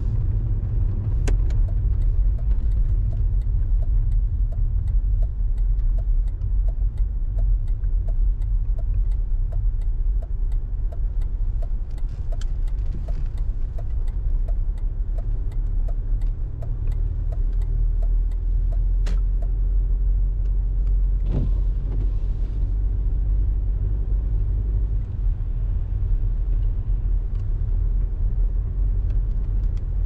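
Car driving on snowy roads, a steady low rumble of engine and tyres. Over it, a regular ticking of about two and a half ticks a second starts with a sharp click about a second in and stops with another click about nineteen seconds in.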